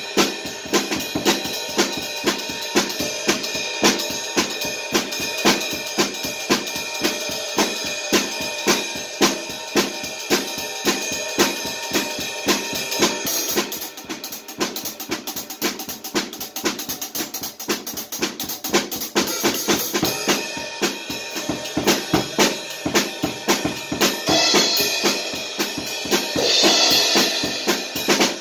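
Acoustic drum kit played in a continuous groove: bass drum, snare and cymbals struck steadily. It drops to a quieter passage about halfway through, and cymbals wash loudly near the end.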